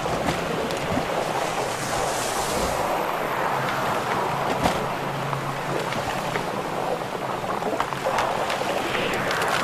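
Drifting river ice during the spring break-up: a steady rushing hiss of water and ice, with scattered crackles and a sharper knock about halfway through.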